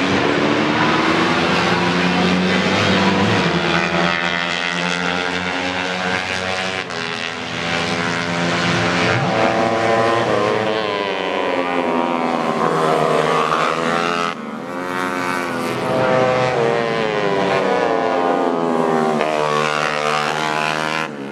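Several tuned 150cc four-stroke underbone racing motorcycles revving hard, their engine notes overlapping and rising and falling in pitch as they accelerate, shift and back off through the corners.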